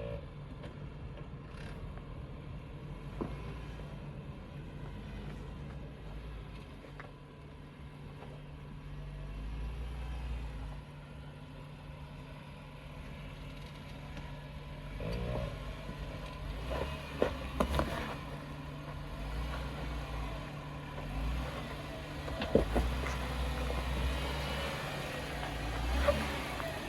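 Jeep Wrangler engine running at low revs as it crawls over rock, the low rumble rising and easing with the throttle. A few sharp knocks and clatters come in the second half, from the Jeep working over the rocks.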